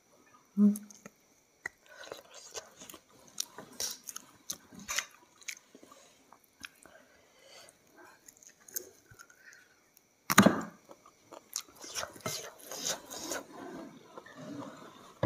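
Close-miked chewing and biting of fried chicken: wet smacks and small crackles in an uneven patter, with one louder sharp sound about ten seconds in.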